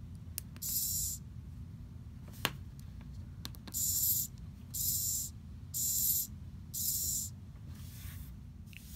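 Micro servo whirring in short bursts as it swings its horn from one end position to the other. There is one burst, then a single click, then four bursts about a second apart and a fainter fifth near the end.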